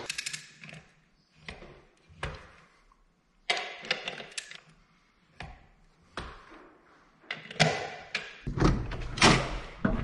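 Metal clicks and clunks of a torque wrench and socket tightening the front wheel nuts on a tractor, in separate strokes with short pauses between them. Near the end come heavier thuds and a low rumble as the tractor cab door is opened.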